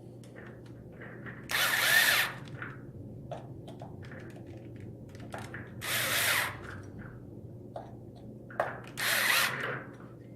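Power screwdriver running in three short bursts of under a second each, driving the M4 chassis screws tight, with small clicks of tool and parts being handled between them.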